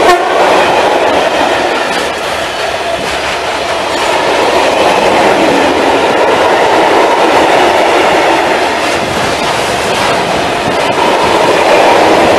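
Covered hopper freight wagons rolling past close by: a steady loud rumble of steel wheels on the rails, with a sharp click right at the start.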